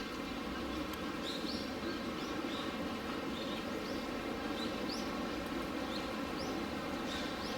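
A small bird chirping, short rising calls repeated about once or twice a second, over a steady background hum.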